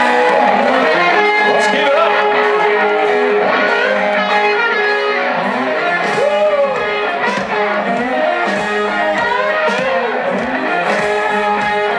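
A rock band playing live, electric guitars to the fore with bending lead lines over the drums.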